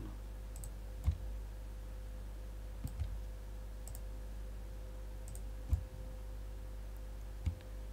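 Several scattered single clicks of a computer mouse, over a steady low electrical hum.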